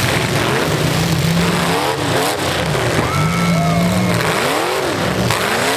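Several V8 demolition derby cars revving hard, their engine pitch rising and falling over and over as they push against one another.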